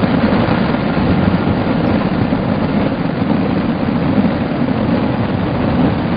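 Massed fireworks barrage heard as a steady, dense low rumble, the individual bursts blurred together.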